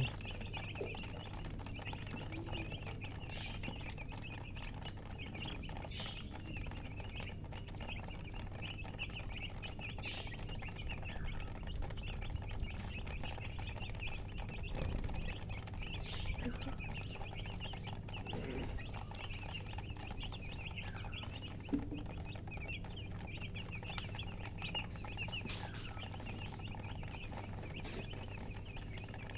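Newly hatched chicks peeping loudly and continuously in a dense chorus of short, high chirps, with a few lower calls mixed in around the middle.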